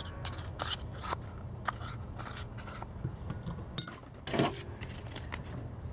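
Metal spoon scraping sticky honey out of a small paper cup and knocking against a glass measuring cup: scattered light clicks and scrapes, the loudest a little past four seconds in.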